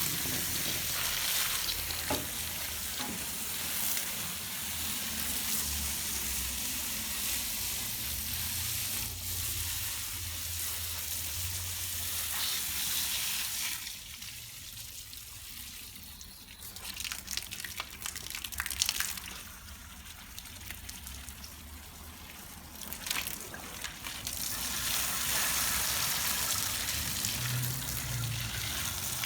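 Hissing spray of water, over a low steady hum, typical of jet-washing an air-conditioner unit. The spray drops away for about ten seconds midway, with a few sharp clicks, then comes back.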